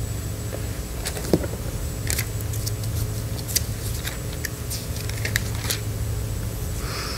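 Steady low hum with faint, scattered clicks and rustles of small handling sounds, and a short soft rush of noise near the end.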